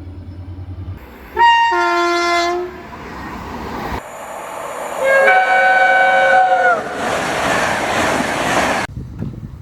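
Train horns in a row: a two-tone horn sounding a higher note, then a lower one; a few seconds later a second horn sounds a steady chord of several tones for about a second and a half. A train then rushes past with a loud noise that cuts off suddenly near the end.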